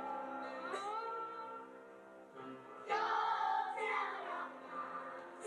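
Children's choir singing a song; the singing grows louder and fuller about three seconds in.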